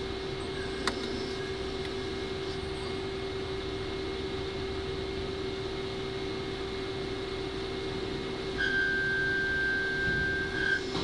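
CNC lathe running with flood coolant spraying onto the spinning workpiece: a steady hum under a hiss, a sharp click about a second in, and a high steady whine for about two seconds near the end.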